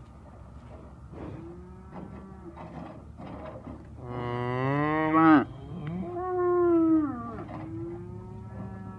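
Cows mooing: several long moos, a faint one early, then a loud one about four seconds in that rises in pitch and drops sharply, and another strong one about six seconds in.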